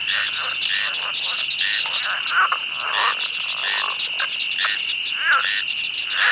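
A night chorus of many frogs calling and croaking, overlapping and irregular, over a steady high-pitched trill that never stops.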